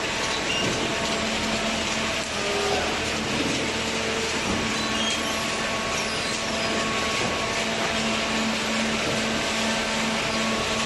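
Horizontal waste-paper baler running steadily: a constant hum under an even wash of mechanical noise, with no separate knocks or strokes.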